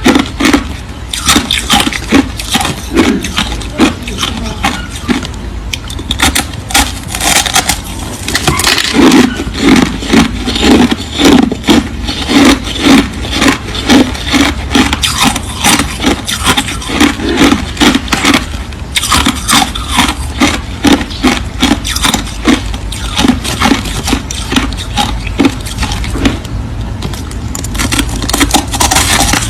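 Crushed ice chewed close to the microphone: a run of loud, crackly crunches, bite after bite, with a couple of short lulls.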